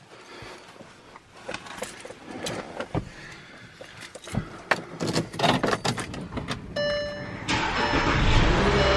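Clicks and knocks in a Volkswagen Touareg's cabin. About seven seconds in there is a short electronic tone, then the engine starts and runs steadily and louder.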